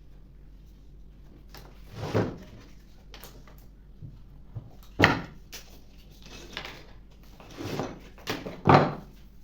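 A few separate wooden knocks and rubs, like a board or panel being handled and set down, the loudest about five seconds in and near the end. A low steady hum runs underneath.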